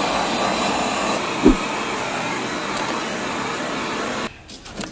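Butane canister blowtorch burning with a steady hiss as its flame heats the copper pipes of an air conditioner's outdoor unit. There is a single short knock about a second and a half in, and the hiss cuts off abruptly near the end.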